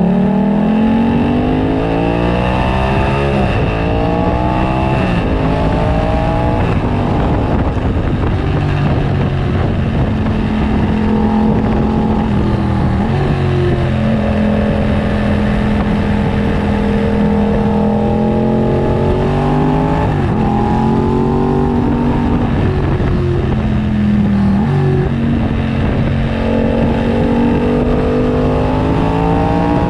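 2015 Yamaha FZ-07's 689 cc parallel-twin engine through a full aftermarket racing exhaust, riding hard. The revs climb and then drop sharply at each gear change, several times, with steadier cruising stretches in between.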